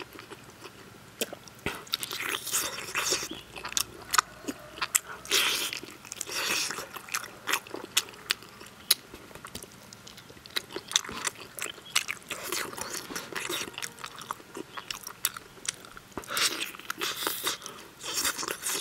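A person biting and chewing soft, braised spicy lamb leg meat and skin off the bone, with many small irregular mouth clicks and smacks in bursts.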